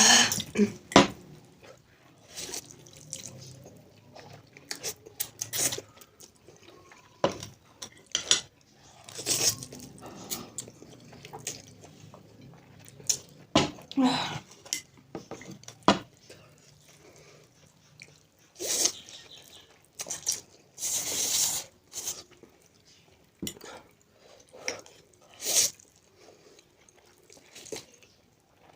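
Two people eating noodles: wet slurping in short bursts, with utensils clicking against bowls.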